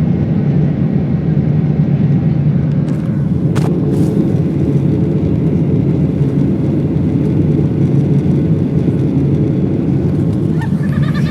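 Airliner cabin noise during the takeoff climb: a steady loud engine and airflow rumble. About three and a half seconds in, two brief sharp sounds are followed by a steady low hum. A short pitched tone comes near the end.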